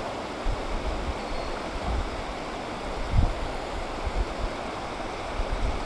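River water rushing over a shallow shoal: a steady hiss of moving current, with a few low thumps, the strongest about three seconds in.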